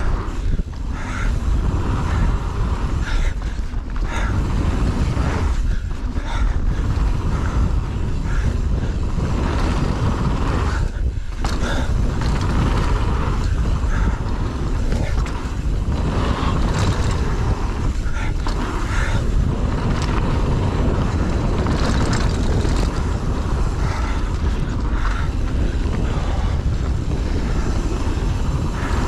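Mountain bike descending a rough enduro stage, heard from an onboard camera: a steady rumble of wind and tyres on the microphone, with the rattle and knocks of the bike over roots and rocks.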